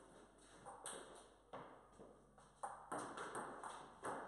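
Table tennis rally: the ball clicking sharply off the bats and table, a series of short ticks at uneven spacing that come closer together in the second half.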